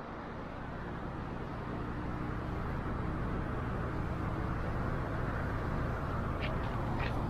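Steady low rumbling ambient noise on an action camera's microphone, fading in at the start and building slowly, with a couple of short faint ticks near the end.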